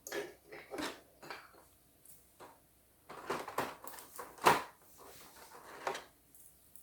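Small plastic toy furniture pieces being handled and set down on a surface: a scatter of light clicks and knocks, busiest about three to four seconds in.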